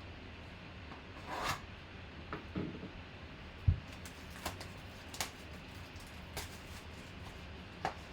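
Trading cards and their packaging being handled on a table: a brief rustle, scattered light clicks and taps, and one dull thump about three and a half seconds in as something is set down.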